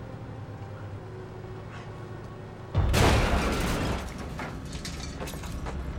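Film sound effects: a low steady rumble, then about three seconds in a sudden loud explosion as the wrecked crane bursts into flames, which dies down after about a second into fire crackling and rumbling with scattered small pops.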